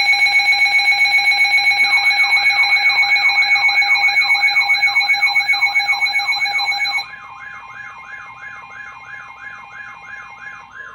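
Emergency alert tones: a loud, steady multi-tone alarm that stops abruptly about seven seconds in. From about two seconds in it is overlapped by a rapidly warbling, siren-like alert tone, about three sweeps a second, which carries on more quietly after the steady tone ends.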